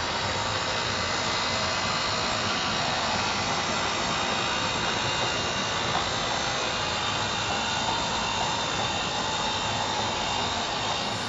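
HO-scale model train running along the track: hopper cars and a small model Vulcan duplex 0-4-4-0T tank locomotive make a steady whirring rumble of wheels and motor, with a faint whine in the later part.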